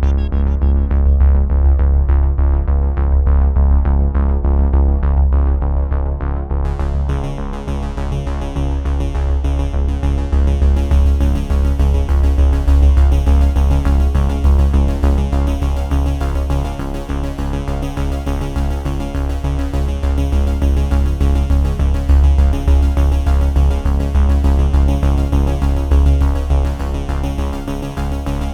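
Background music: an electronic synthesizer track with a steady heavy bass line, and brighter high parts coming in about seven seconds in.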